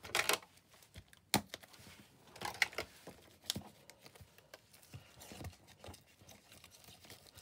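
Stiff plastic packaging being handled and pried open by hand: irregular clicks, taps and light crinkles of the plastic, the sharpest just after the start and about a second and a half in.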